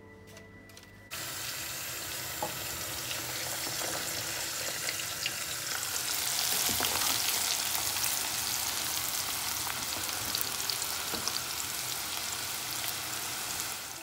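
Food deep-frying in a pan of hot oil, a steady sizzle with scattered crackles that starts suddenly about a second in, as a metal slotted skimmer is stirred through the oil.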